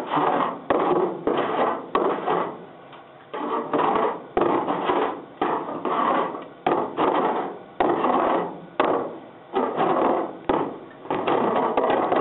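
File rasping across hardened body solder on a car body panel in repeated push strokes, one or two a second, each starting sharply and tailing off, with a short pause about three seconds in.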